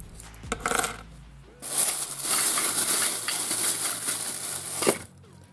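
Clear plastic bag crinkling as it is handled and lifted out of a cardboard box: a short rustle about half a second in, then a long stretch of dense crinkling from about two seconds in, ending with a sharp click near the end.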